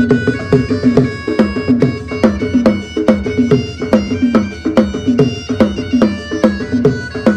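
Balochi lewa music: a keyboard plays a reedy, bagpipe-like lead melody in sustained notes over a fast, steady drum beat.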